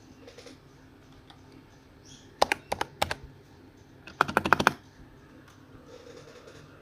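Clacky computer keyboard being typed on: a short burst of about half a dozen keystrokes, then after a second's pause a quicker run of about nine.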